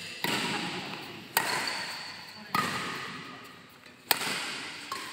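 Four sharp hits in a fast doubles rally, about one every 1.3 seconds, each fading away before the next.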